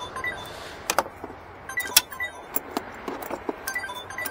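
Irregular clicks and knocks of a car battery being worked loose and lifted from its plastic battery tray by gloved hands, with two sharper knocks about one and two seconds in. A few short, faint high tones recur every couple of seconds.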